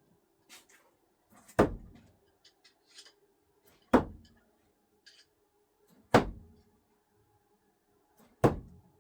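Screwdrivers thrown no-spin striking the throwing target four times, a sharp impact roughly every two and a quarter seconds.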